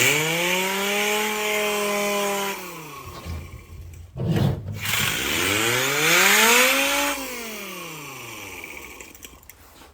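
Pneumatic orbital sander run twice on compressed air. It spins up with a rising whine and air hiss, holds steady for about two seconds and winds down; after a brief burst of noise about four seconds in, it spins up more slowly and coasts down at length.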